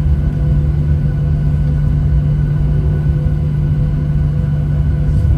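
Cabin noise of a Boeing 737 taxiing: a steady low engine hum with rumble beneath it and a few faint steady tones above.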